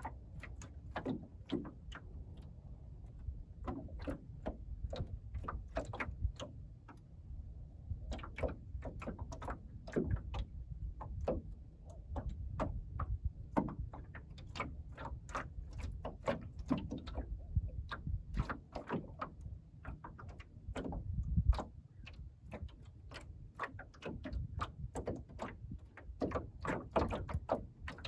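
Small wavelets lapping and slapping against the wooden hull of a small sailing skiff, an irregular run of light clicks and knocks over a low, steady rumble.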